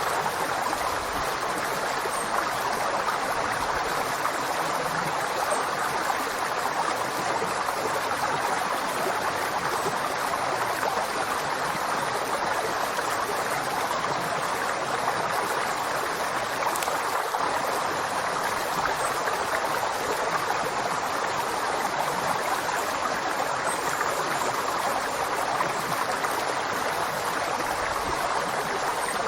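River water flowing steadily over rocks, a continuous rushing with no changes.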